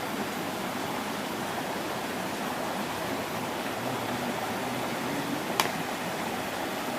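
Steady rush of flowing stream water, with a single sharp click a little past halfway through.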